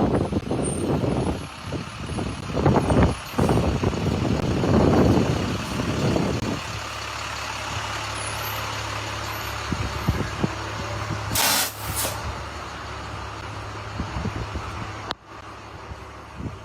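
Street traffic noise with heavy vehicles: loud uneven rumbling at first, then a steadier low hum with a short sharp hiss in the middle. The sound drops away suddenly near the end.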